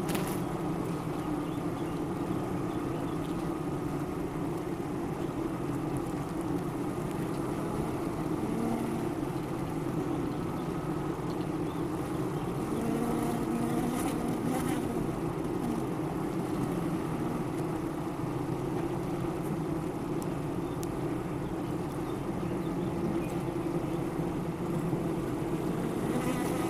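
Many honeybees from a hive buzzing in a steady, unbroken hum.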